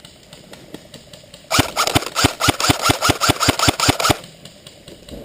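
Airsoft gun firing a rapid string of about fifteen shots, about six a second, for roughly two and a half seconds, then stopping abruptly.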